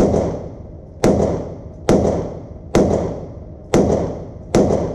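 SIG Sauer P365 pistol being fired, six shots at a steady pace of roughly one a second, each shot ringing off briefly.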